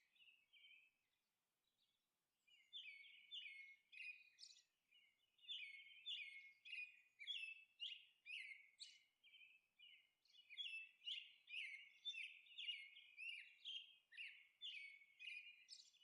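Faint birdsong: quick runs of short, high chirps, several a second, with two brief pauses.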